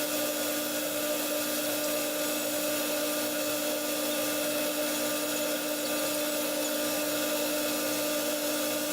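Clausing metal lathe running steadily under power while a tool cuts a shallow recess in a small steel part, a constant hum with a steady whine over it.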